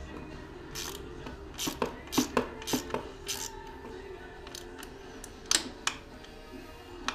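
Irregular metallic clicks and clinks of a hand and tool fitting a bolt on a dirt bike's chain slider, most of them about one to three seconds in and a pair near five and a half seconds. Faint background music plays under them.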